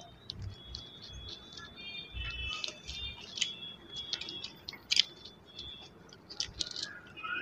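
Soft clicks and low taps of a meal being eaten with the fingers at a table, with a sharper click about five seconds in. Faint high-pitched background music notes come and go behind it.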